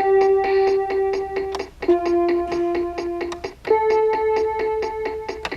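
Meowsic toy keyboard in piano mode playing three long held notes, the second lower and the third highest, over its built-in electronic drum backing rhythm.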